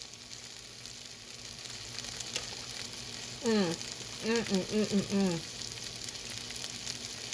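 Steady faint sizzling with light crackles, as of food frying on a hot cooking surface. A woman's voice is heard briefly about halfway through.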